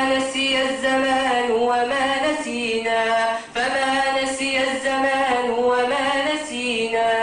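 A man's voice singing an Arabic nasheed without instruments, holding long, wavering notes, with a short breath about three and a half seconds in.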